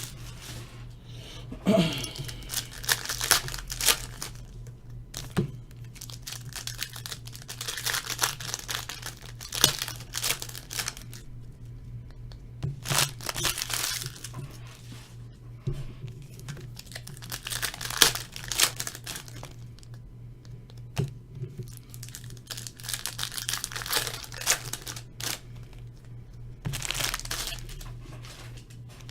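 Foil trading-card pack wrappers being torn open and crinkled, in repeated rustling bursts a few seconds apart, over a low steady hum.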